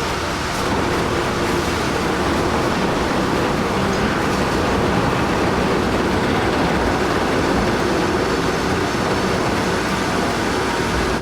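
Heavy haul truck running, a steady dense noise without a clear rhythm or pitch.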